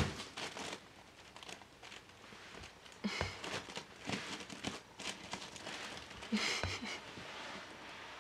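Irregular crinkly rustling and handling noise from a person's hand and sleeve moving close by, with one sharp knock right at the start and louder rustles about three and six and a half seconds in.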